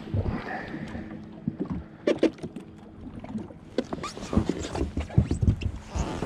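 Water slapping and lapping against the hull of a drifting jet ski, with scattered sharp knocks and clicks.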